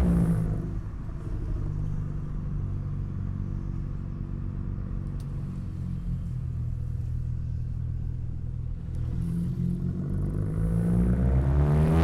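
Exhaust of an Audi A3 2.0 TFSI's turbocharged EA888 four-cylinder with aftermarket downpipe and catback, heard from a microphone outside the car while driving. The engine note drops right at the start, runs steadily at low revs, then climbs as the car accelerates near the end.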